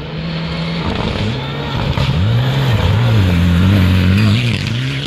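Rally car on a gravel stage approaching and passing close by, its engine revs rising and falling over a rush of noise from the gravel, growing louder about two seconds in and loudest near the end.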